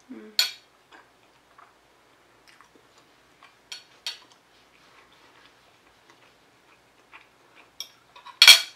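A person eating: quiet chewing and mouth sounds with scattered sharp clicks of a fork against a plate, and one louder clatter near the end.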